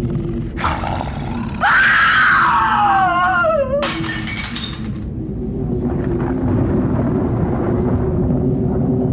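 Spooky sound-effect montage: a steady low drone underneath, a loud wailing cry that slides down in pitch and wavers at its end, then glass shattering with a ringing crash about four seconds in.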